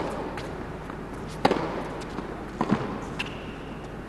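Tennis ball struck back and forth in a rally: three sharp racket hits about a second and a half apart, with lighter ticks between, over a steady arena hum.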